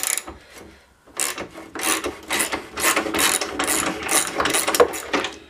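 Hand socket ratchet wrench clicking rapidly as a lawnmower wheel bolt is backed out. The clicking starts about a second in and keeps on until near the end.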